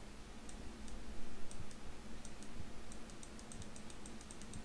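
A string of light, sharp computer-mouse clicks as a word is written stroke by stroke with an on-screen pen tool, coming faster about three seconds in, over a low steady hum.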